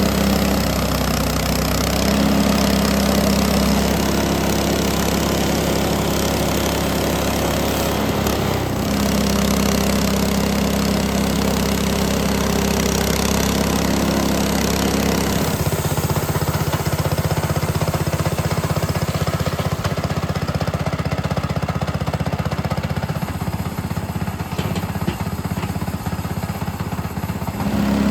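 Frontier OS18 portable bandsaw mill running steadily while sawing a black walnut branch into boards. About halfway through, its steady engine note changes to a rougher sound that holds to the end.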